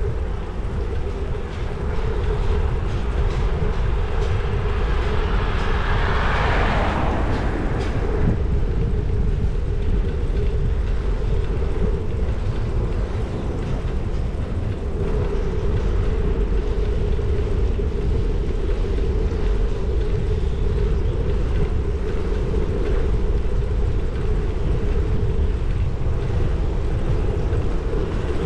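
Ride noise from a camera on a moving bicycle on wet roads: wind rumble on the microphone and tyre noise, with a steady hum throughout. About six seconds in a louder swish rises and falls away in pitch.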